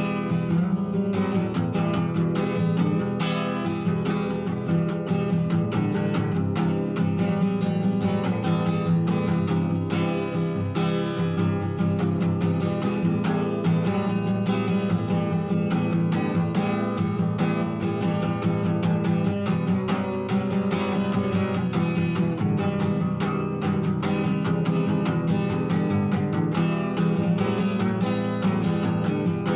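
Acoustic guitar music played at an even, steady level throughout, with no singing.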